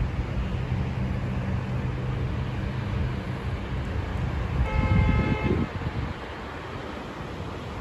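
Street traffic: a vehicle engine runs with a steady low hum, then about five seconds in a vehicle horn toots once for about a second over a surge of passing-vehicle noise.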